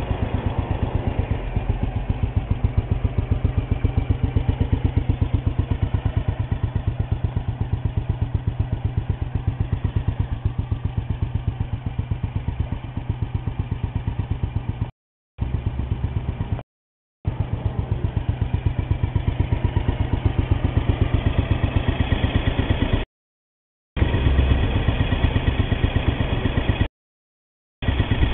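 Single-cylinder 249 cc OHV four-stroke engine of a 1964 Kawasaki Meguro SG250 motorcycle running steadily with even firing pulses. The sound drops out completely four times for a moment.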